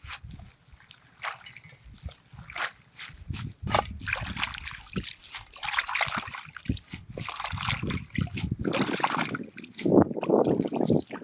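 Water trickling, sloshing and splashing, with many scattered clinks and knocks; a heavier rush of water starts about ten seconds in.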